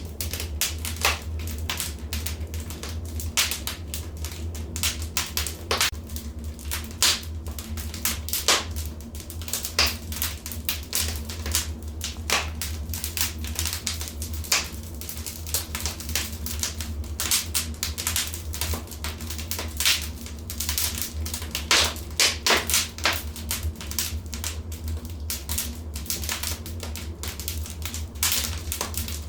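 Wood fire crackling: irregular sharp pops and snaps, several a second, some louder than the rest, over a steady low rumble of the burning flames.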